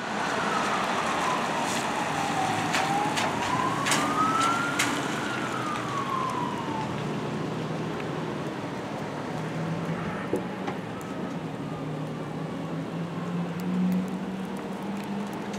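Siren of a 1997 E-One Hush fire engine responding, wailing in one slow fall, rise and fall of pitch over the first seven seconds, then fading to faint. A steady hiss runs underneath, and a low drone grows louder near the end.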